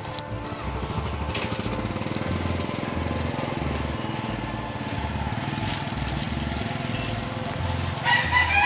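A rooster crows once near the end, the loudest sound here, over a steady motor-like drone with a regular low thump.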